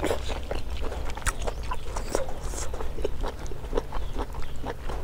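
A person chewing a mouthful of food close to the microphone: a run of short, irregular clicks, over a low steady hum.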